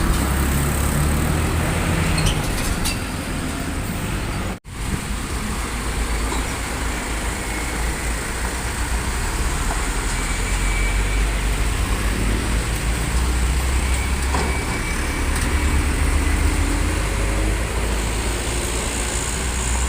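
Heavy road traffic going by: continuous low engine rumble and tyre noise from passing trucks and buses, broken by a split-second gap about four and a half seconds in.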